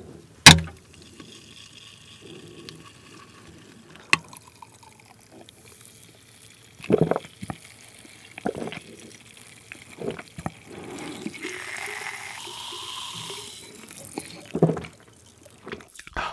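A cola can's pull-tab cracks open with one sharp pop about half a second in, followed by faint fizzing. Then several gulps are heard as the carbonated cola is drunk from the can.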